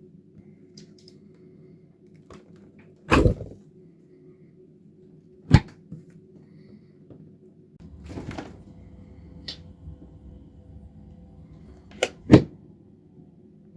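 Refrigerator and freezer doors being opened and shut: a series of separate thumps and clicks, with a rustling opening about two thirds of the way through and a quick double knock near the end, over a steady low hum.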